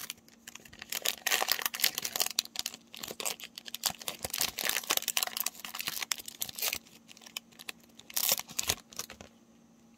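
Foil wrapper of a trading-card pack being torn open and crinkled by hand: a dense run of sharp crackling rustles that falls quiet near the end.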